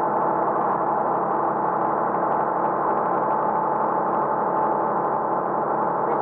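An old truck's diesel engine running steadily at a constant pitch, a continuous many-toned drone with no change in speed.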